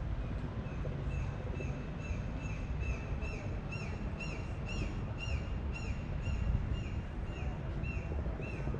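A bird repeating a short high chirp about twice a second, over a steady low rumble of city noise.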